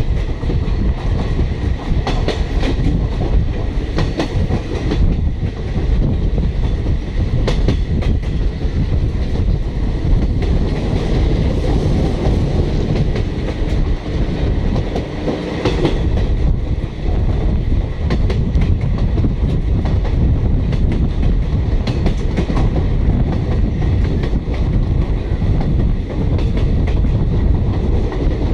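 Running noise of a passenger train heard from an open coach doorway: a steady loud rumble of steel wheels on the rails, with irregular clacks as the wheels cross rail joints and points.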